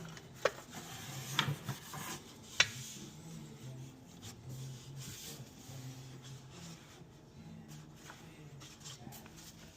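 Hand work on a car wheel: three sharp clicks or knocks within the first three seconds, then light rubbing and scraping, over a faint low hum.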